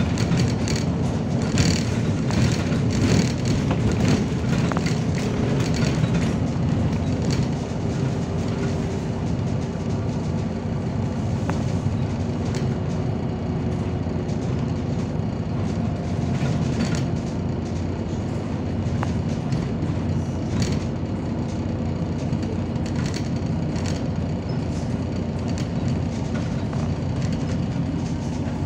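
Inside the cabin of a MAZ-203 low-floor city bus under way: a steady low drone from the engine and tyres. Many rattles and clicks from the body and fittings over the first several seconds, then a smoother run with a faint whining tone.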